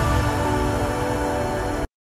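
Electronic intro music with a heavy low end and sustained tones, cutting off suddenly near the end.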